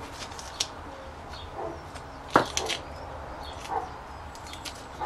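Scissors and fingers picking tape off a paper catalogue: a few light clicks and taps, the sharpest about halfway through.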